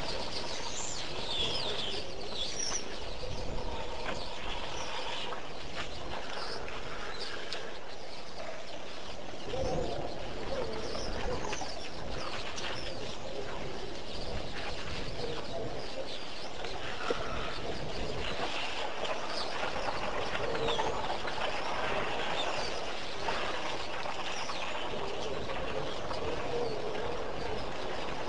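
Many wild birds chirping and calling throughout, some high and quick, some lower, over a steady background hiss.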